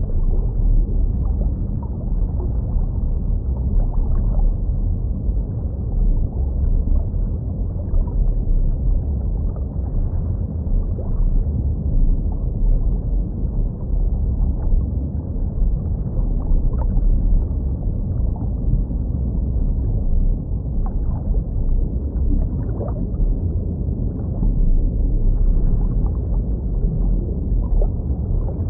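Muffled underwater ambience of a fish tank: a steady low rumble with faint scattered bubbling ticks.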